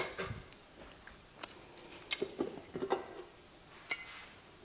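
Kitchen utensils knocking and clinking: a few scattered sharp clicks, then a stainless steel mixing bowl and spatula being handled, with a brief metallic ring near the end.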